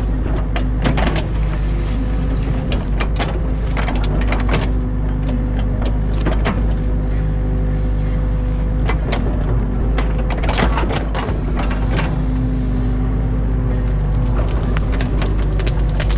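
Excavator's diesel engine running steadily under hydraulic load, with scattered knocks and scrapes from the bucket and arm as it works.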